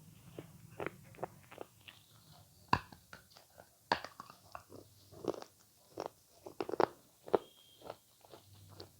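Close-miked ASMR eating sounds of avocado being bitten and chewed: a run of short, irregular clicks and smacks, the sharpest a little under three seconds in and again around four and seven seconds in.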